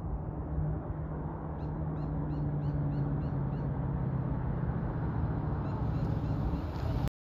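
A car engine running steadily out of sight, with a bird giving a quick series of short chirps, about three a second, around two seconds in. The sound cuts off abruptly near the end.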